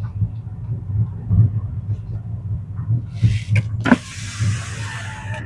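Car cabin road noise while driving slowly on a rough unpaved road: a steady low rumble from the tyres and engine. About four seconds in a rushing hiss with a faint falling whine comes in, as the electric side window winds down and outside air rushes in.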